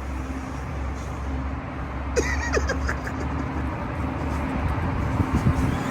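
Traxxas Ford Raptor R RC truck driving, over a steady low vehicle rumble, with a few short clicks and squeaks from about two seconds in.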